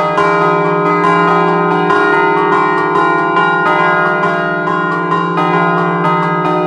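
Stationary church bells of a three-bell E-flat peal, cast by De Poli in 1947, struck by hand with their clappers in a rapid scampanottata. The strokes come fast and overlap into continuous ringing.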